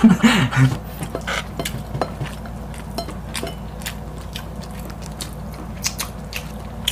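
Close-miked eating sounds: scattered light clicks and taps of a wooden spoon against glass bowls, with chewing, after a voice trails off at the start.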